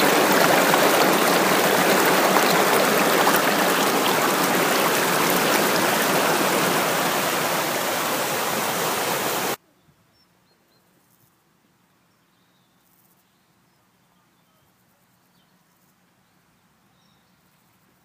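White water pouring over a weir, a loud steady rush that cuts off abruptly about nine and a half seconds in. Then near silence outdoors, with a few faint bird chirps.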